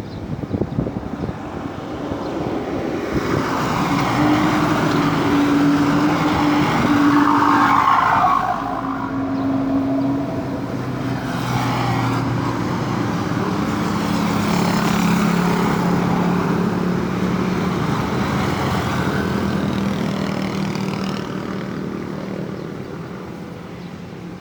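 Road traffic passing close by: vehicle engines and tyres swell as they approach and fade away, twice growing loud, with a falling pitch as one goes past.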